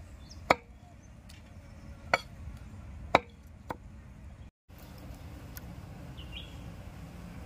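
A blade chopping bombil (Bombay duck) fish on a wooden chopping block: three sharp chops about a second apart, then a lighter fourth. The sound cuts out briefly about halfway through, leaving only a faint, even background.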